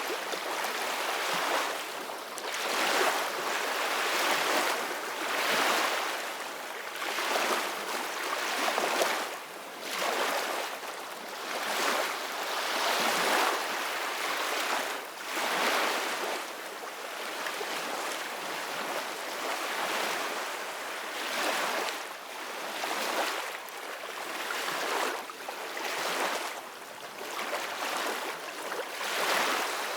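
Soft ocean waves: a hiss of surf that swells and falls every two to three seconds.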